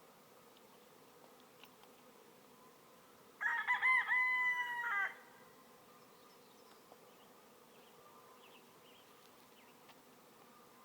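A rooster crows once, about three and a half seconds in, a call of under two seconds. Underneath, the faint steady hum of a honey bee swarm.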